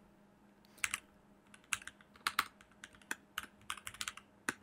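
Computer keyboard typing: a quick, uneven run of key clicks that starts about a second in.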